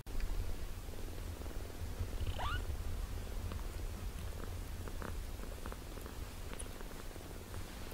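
British shorthair cat purring steadily close up while grooming a kitten. About two seconds in, a short, high, rising kitten mew cuts through.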